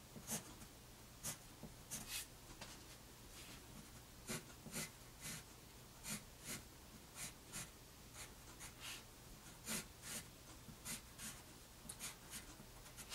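Graphite pencil scratching on paper in short separate strokes, about one or two a second, as parallel and crossing lines are drawn to crosshatch a grill. The strokes are faint.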